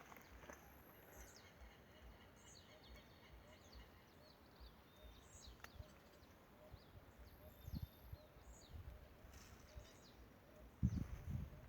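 Faint chirping of several small birds, short calls and quick upward and downward notes repeating throughout over a quiet steady hiss. A few low thumps break in about eight seconds in and near the end.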